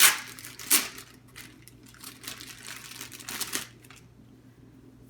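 Hands handling a small item: two sharp clicks right at the start and shortly after, then lighter clicking and rustling that die away after about four seconds.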